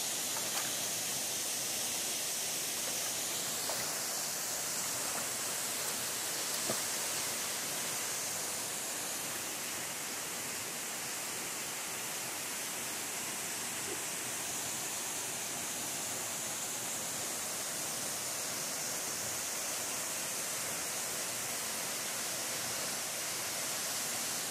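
A waterfall pouring into its plunge pool: a steady, even rushing hiss, with a few faint ticks.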